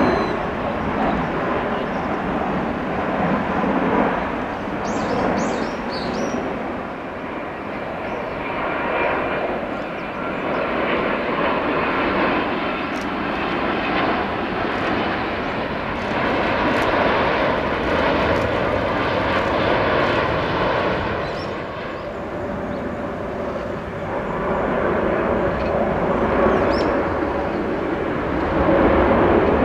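Jet airliners on final approach passing low, their engines making a steady roar with a faint whine. The level swells and eases as each aircraft goes by.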